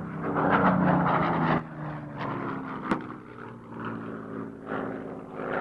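Aircraft engine drone, a steady pitched hum that is louder for the first second and a half, then drops back and sinks slowly in pitch.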